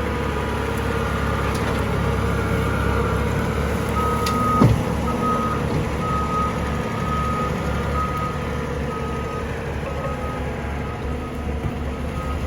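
Heavy machinery engine running steadily during the recovery of an overturned excavator, with a high warning beeper starting about four seconds in and sounding on and off. A single sharp knock comes just after the beeping begins.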